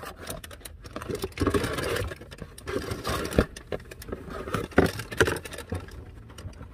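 A cake box and its paper wrapping being handled and opened: irregular rustling and scraping with scattered sharp clicks.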